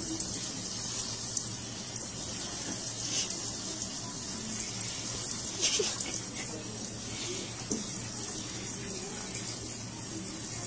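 Kitchen faucet spray running steadily onto a cat's head and into a stainless steel sink, a steady hiss of water with a few brief louder splashes, the clearest about halfway through.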